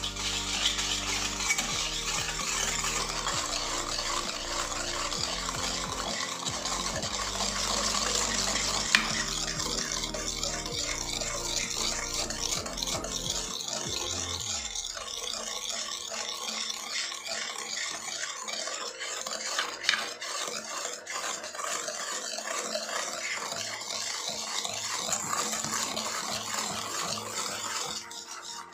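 Wire whisk beating a thick sugar, ghee and curd cake batter in a stainless steel bowl: rapid, continuous scraping and swishing with the wires clinking against the metal now and then.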